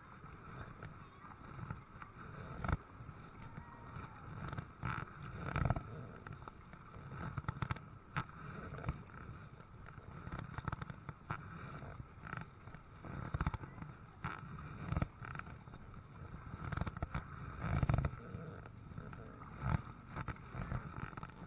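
Kayak being paddled: irregular knocks and thumps every second or two from the paddle and hull, with water noise in between.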